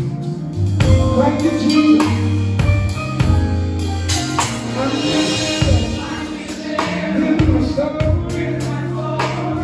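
Live gospel band playing, heard from right beside the drum kit: drum hits and cymbals over a steady bass line, with singers on top.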